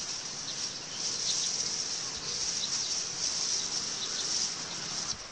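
Insects shrilling in a steady, high-pitched chorus that swells and eases slightly.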